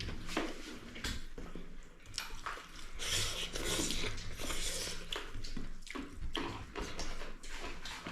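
Eating sounds at a meal of chicken and rice: chewing, with scattered light clicks and scrapes on a plate.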